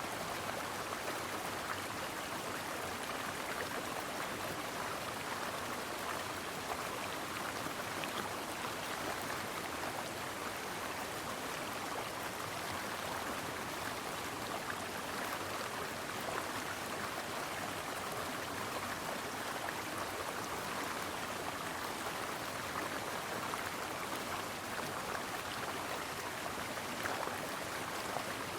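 Brook water flowing over rocks: a steady, even rushing and babbling.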